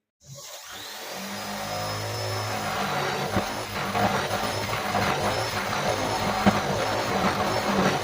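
Electric power tool running steadily, starting up just after the beginning and holding a continuous hum with scattered clicks.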